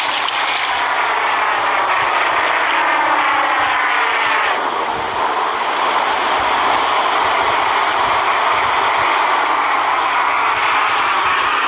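A creature sound effect made for a fictional five-headed sea monster: a loud, continuous, rough drone full of sliding, wavering tones that starts a fresh sweep about four and a half seconds in.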